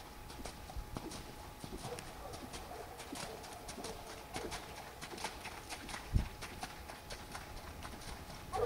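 Hoofbeats of a ridden horse on the wet sand footing of a riding arena: a steady run of light, regular hoof strikes heard at a distance.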